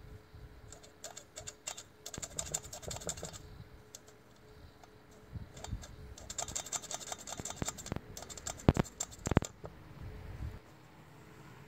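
Quick flurries of small clicks and taps as hands handle the small metal parts of an Edelbrock Quadrajet carburetor, with two louder sharp knocks near the end.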